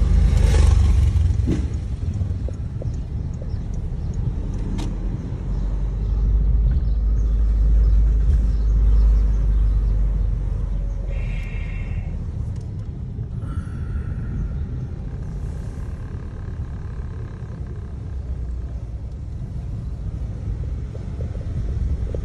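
Low rumble of a car's engine and tyres, heard from inside the moving car's cabin. A brief high tone sounds about eleven seconds in.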